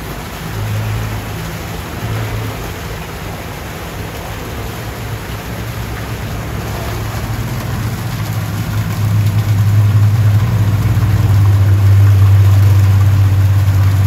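Fish-tank aeration and water pumps humming steadily over a hiss of bubbling water. The hum grows louder about two-thirds of the way through.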